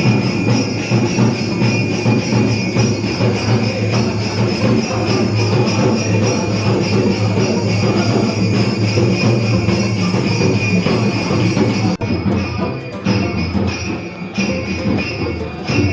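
Background music with jingling bells over a steady rhythmic beat, starting abruptly.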